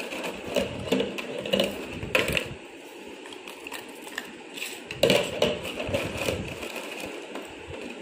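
Yellow Labrador crunching dry dog biscuits: a run of crisp chewing over the first two seconds or so, then quieter, and a second run about five seconds in.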